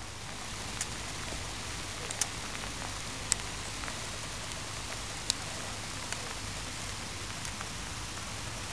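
Steady hiss of rain falling, with a few sharp ticks of single drops scattered through it.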